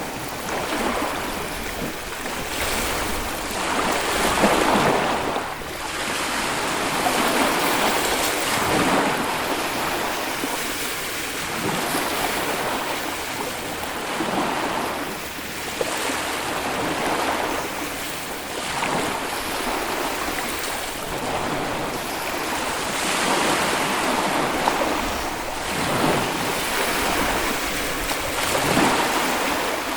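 Small Baltic Sea waves breaking and washing onto a sandy beach, a steady wash of surf that swells every few seconds. Some wind noise on the microphone.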